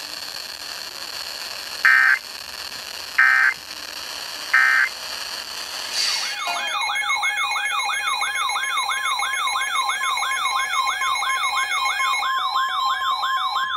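Three short bursts of Emergency Alert System digital data tones, a second or so apart, typical of the end-of-message code that closes an alert. About six seconds in, a siren-like alert tone starts, wailing up and down about three times a second, which announces the next warning.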